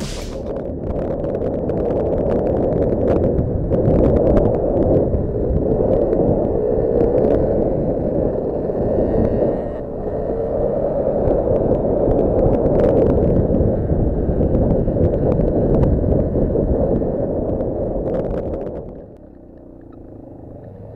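Heavy wind buffeting on a helmet-mounted action camera, mixed with the rumble of the quad being ridden, as it runs across rough ground. The sound drops off sharply about nineteen seconds in.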